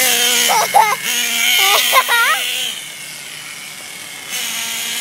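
A toy remote-control car's small electric motor whines at a steady pitch, stops about halfway through, and starts again faintly near the end. A child's voice gives short squeals twice over the whine.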